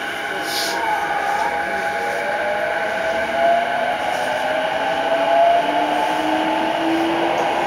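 JR East E233-5000 series EMU's VVVF inverter and traction motors whining as the train accelerates from a stop, several tones rising steadily in pitch together. There is a short hiss about half a second in.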